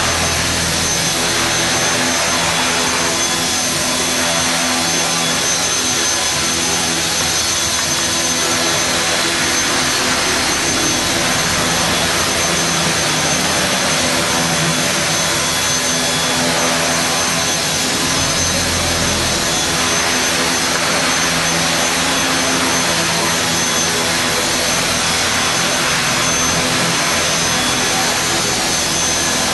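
HK450GT Pro 450-size flybarless electric RC helicopter hovering: a steady high-pitched whine from its brushless motor and gears over the whoosh of the spinning rotor blades, holding an even level throughout.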